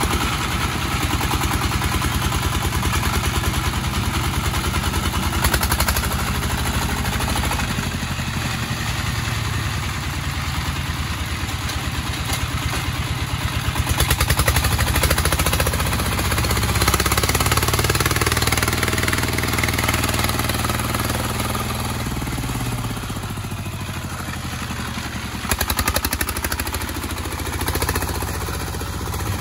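Horizontal single-cylinder diesel engine of a công nông farm truck chugging steadily as the two-wheel tractor drives over muddy ground, with some clatter. It grows louder for a few seconds past the middle, and its pitch shifts as the speed changes.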